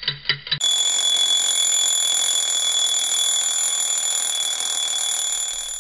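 Rapid pulsing, about seven beats a second, for the first half-second, then an alarm bell ringing continuously with a high steady tone for about five seconds.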